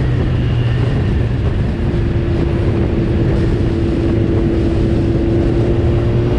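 Honda Fireblade's inline-four engine running at a steady cruise on the road, under heavy wind and road noise. About two seconds in, a steady engine note comes up and holds its pitch.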